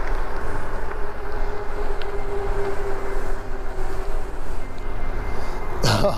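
Electric mountain bike cruising on pavement under pedal assist: a steady rumble of wind on the microphone and tyres on the road, with a thin steady motor whine.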